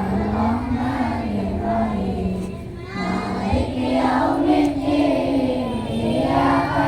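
A group of schoolchildren singing a prayer together in unison: a slow melody of long, held notes.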